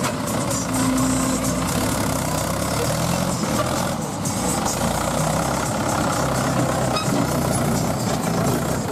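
Mahindra tractor's diesel engine running steadily as it pulls a trolley loaded with mud over rough ground.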